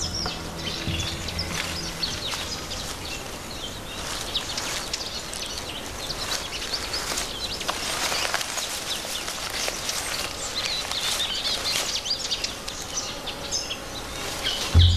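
Natural forest ambience: many short, high-pitched bird chirps scattered throughout over a steady background of insects.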